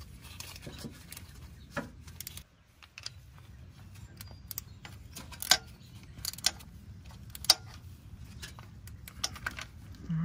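Metal tools clicking and clinking against the engine block as the crankshaft position sensor's mounting bolts are tightened: irregular sharp clicks, a few louder ones past the middle, over a low steady hum.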